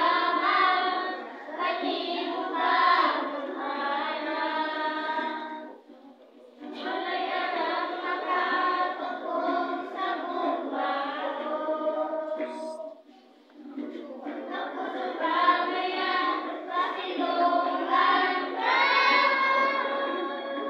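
A group of young children singing together in unison, the song running in phrases with two short breaks about six and thirteen seconds in.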